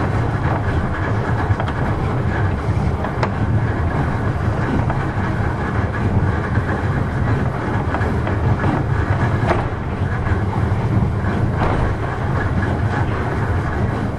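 Kintetsu Nishi-Shigi Cable funicular car (Ko 7 type, no. 8) running down the line: a steady rumble of the wheels on the rails with a few sharp clicks.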